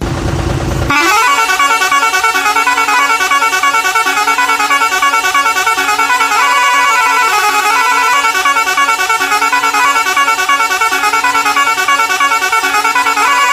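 A truck's musical horn playing a fast melody of short, pulsed notes that step up and down, after about a second of loud hiss at the start.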